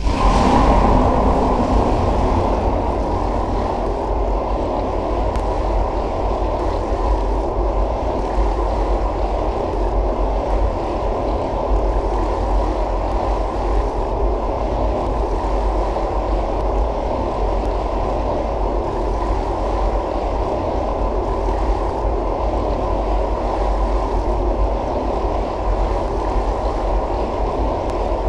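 Steady low rushing noise that starts suddenly and holds even throughout, with no distinct events in it.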